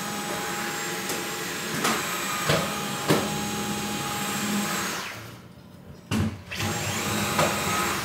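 Dyson vacuum cleaner running with a steady whine, and a few knocks along the way. A little past halfway it dies away for about a second, then starts up again.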